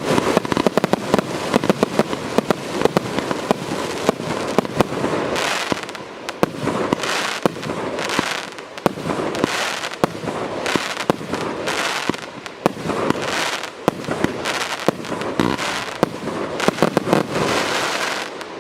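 A 108-shot 30 mm (1.2-inch) consumer firework cake firing shot after shot, with dense sharp pops. From about five seconds in, rushing bursts come roughly once a second among the bangs.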